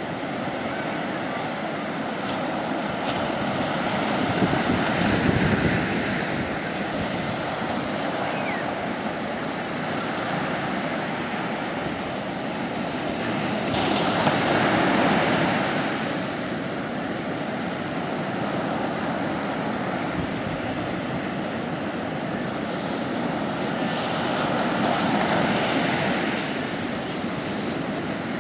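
Sea waves breaking and washing onto the shore. The surf swells three times, about ten seconds apart.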